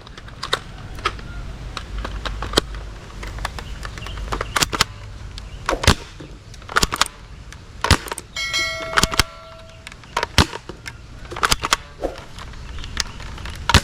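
A plastic toy AK-47 gun giving sharp, irregular clicks and clacks as it is handled and fired. About halfway through there is a short electronic tone from the toy.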